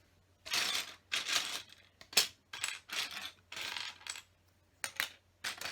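Hands rummaging through loose plastic LEGO pieces, a clattering in a string of short bursts.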